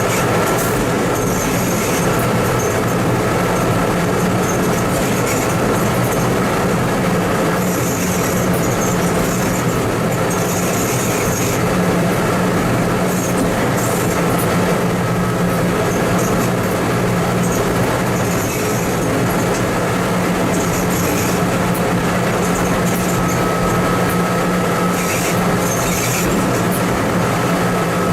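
TMC200 snowplow motor car running along the track: a steady drone from its diesel engine under rolling rail noise, with short high-pitched bursts coming and going every few seconds.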